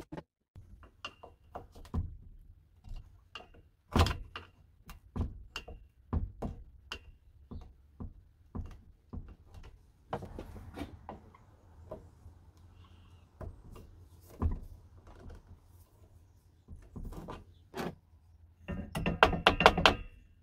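Tools knocking, tapping and scraping on the metal and wooden parts of a vintage bathroom scale as it is taken apart, in separate sharp knocks. Near the end comes a quick run of scrubbing strokes from a brush on the painted metal.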